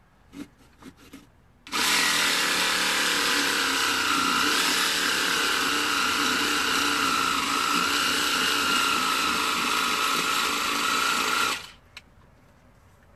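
Small battery-powered jigsaw running at a steady pitch as it cuts into a pumpkin, starting about two seconds in and stopping abruptly about ten seconds later. A few light clicks come before it starts.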